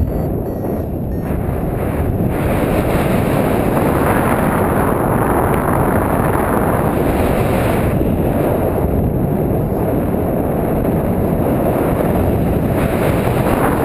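Airflow buffeting the microphone of a camera mounted on a paraglider harness in flight: a loud, rushing wind noise that swells and eases every few seconds.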